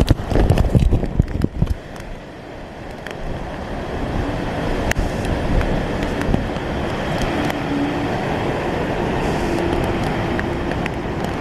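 Strong hurricane wind buffeting the microphone in heavy gusts for the first couple of seconds, then settling into a steady rushing noise.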